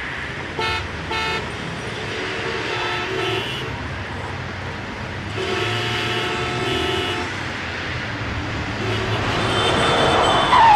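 Street traffic with car horns tooting: two short toots about a second in, another about three seconds in, and a longer one around six seconds, over steady traffic noise.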